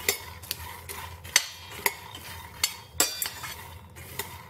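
Metal spoon stirring dry-roasted peanuts in a thick-bottomed pan, scraping and clinking against the pan in irregular strokes as the peanuts are turned.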